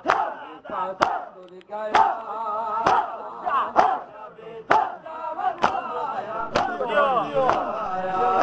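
A crowd of men performing matam, striking their chests in unison about once a second, with the mourners chanting and crying out between the strikes.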